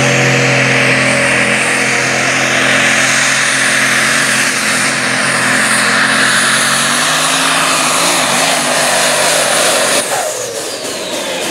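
Super Stock diesel pulling truck's Duramax diesel engine at full throttle under load while pulling the sled, loud and steady, with a high turbo whistle slowly rising in pitch. About ten seconds in the sound drops suddenly and a whine falls away in pitch.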